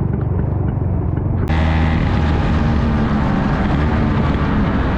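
Car engine noise, a steady low rumble. About a second and a half in, the sound cuts abruptly to a brighter, hissier recording with the engine still running underneath.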